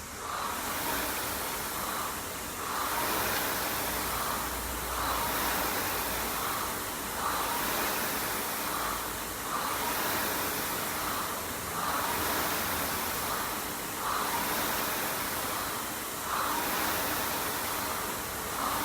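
Rowing machine's flywheel whooshing with each stroke, a steady rhythm of about one stroke every two seconds.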